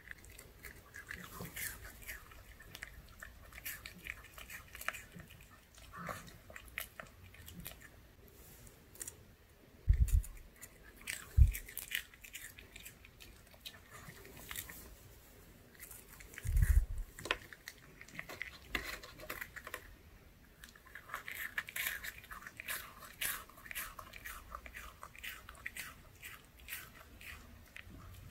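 A Pomeranian chewing and biting pieces of a soft pancake-style dog treat, with many small wet clicks and smacks of its jaws and licking of its lips. Three dull low thumps stand out about 10, 11.5 and 17 seconds in.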